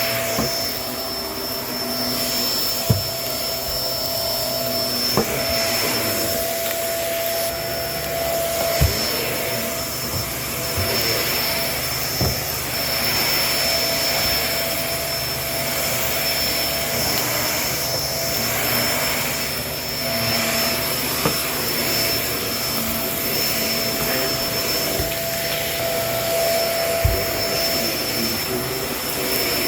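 Kenmore vacuum cleaner running steadily with a constant high whine, its pitch slowly wavering as it is pushed back and forth, with a handful of brief sharp clicks.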